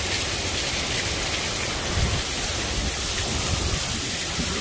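Heavy thunderstorm rain coming down in sheets: a steady, dense hiss of torrential rain.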